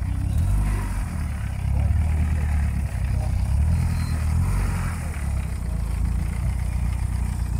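A car engine running steadily with a low-pitched hum, with faint voices in the background.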